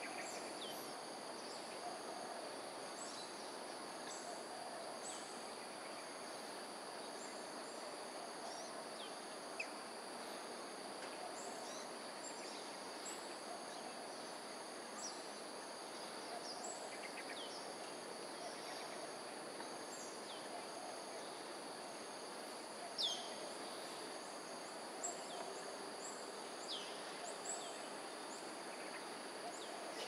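Outdoor ambience of a steady high insect drone at two pitches, with scattered short high chirps that sweep downward, the loudest about three-quarters of the way through, over a steady background hum.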